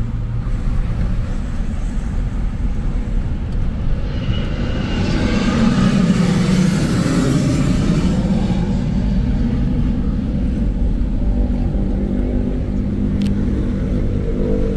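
Car driving in city traffic, heard from inside the cabin: a steady engine and road rumble. A louder rushing swell builds and fades in the middle, peaking about six seconds in.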